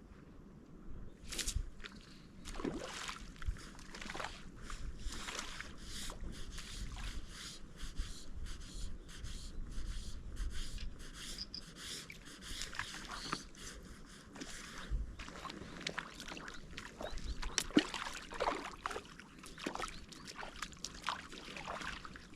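Irregular splashing and sloshing of water, a dense run of short crackly splashes.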